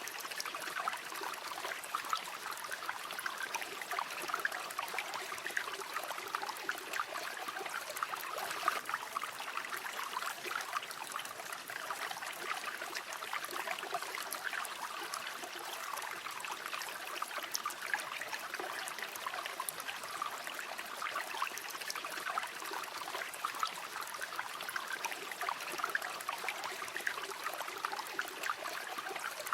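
River water flowing and babbling steadily over rocks, an even rush of small splashes and trickles.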